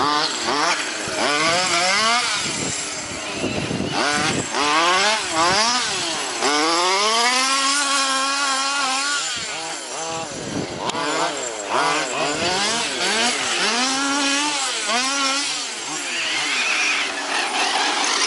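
Large-scale RC buggy's 26cc two-stroke petrol engine revving up and down over and over as it is driven hard round a dirt track, with a long held high rev on a straight near the middle.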